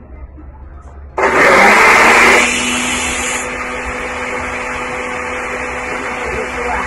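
Electric countertop blender switched on about a second in, blending green juice with spinach and avocado. It is loudest for the first second, then settles into a steady, lower motor whine.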